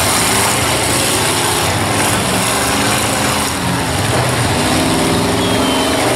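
Several demolition derby pickup trucks' engines running and revving at once, their pitch rising and falling about four seconds in.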